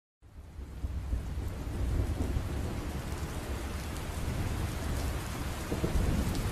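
Steady rain falling, with a low rumble of thunder underneath; it fades in just after the start.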